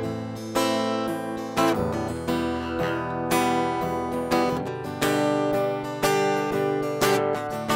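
Acoustic guitar playing strummed chords, a fresh strum about every second with the chord ringing on between strokes.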